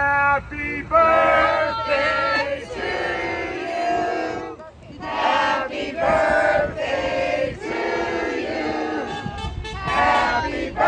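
A crowd of people singing together in long, held notes, with a short break about four and a half seconds in.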